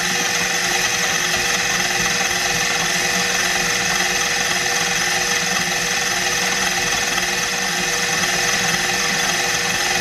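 KitchenAid KFP1333 13-cup food processor running steadily on low speed, its motor giving a constant whine as the dough blade turns a mass of bread dough around the bowl.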